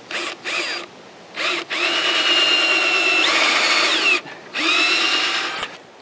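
Cordless drill pre-drilling pilot holes into a wild cherry log: several starts and stops of the motor whine, two short ones, then a long run of about two and a half seconds and another of about a second, each rising in pitch as the drill spins up.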